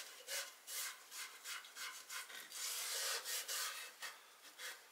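A cloth rag rubbed back and forth along the edge of a wooden bracket, wiping on water-soluble powder stain. It makes a dry rubbing in short strokes, about three a second, with one longer unbroken wipe around the middle.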